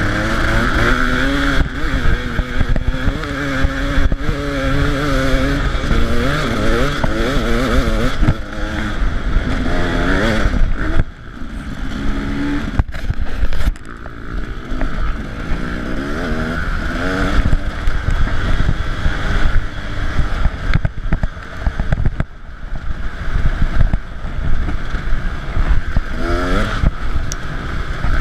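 KTM 300 EXC two-stroke single-cylinder dirt bike engine ridden under load, its note rising and falling as the throttle opens and closes, with brief throttle-off dips about eleven and fourteen seconds in. Wind buffets the bike-mounted microphone underneath.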